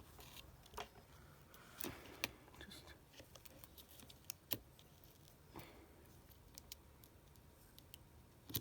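Faint, scattered small clicks and taps, several in a few seconds, from tools and small parts being handled while fitting the back camera and its bracket inside an iPhone 7.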